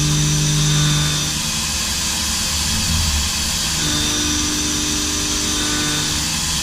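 CNC mill-turn machine running a cut on brass: a steady machine and coolant noise with spindle tones that fade out after about a second and come back about four seconds in.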